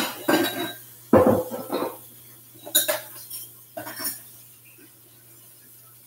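Dishes, pans and utensils being handled in a kitchen: a run of several clinks and knocks, the loudest a ringing clatter just over a second in, over a faint steady hum.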